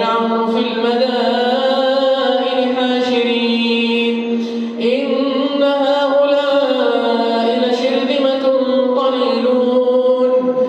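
A male reciter chanting the Quran in a slow, melodic recitation, drawing the voice out in two long held phrases. The pitch steps up slightly about halfway through.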